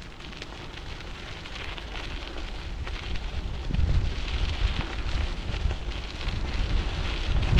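Wind buffeting the microphone of a bicycle-mounted action camera during a ride, with rumble and light rattling crackle from the bicycle over paving. It grows louder toward the end.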